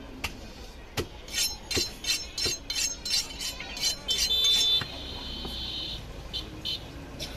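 Two butcher's knives stroked edge against blade to hone one of them: a run of quick metallic scrapes, several a second, ending in one longer ringing scrape a little past the middle. A few light clicks follow near the end.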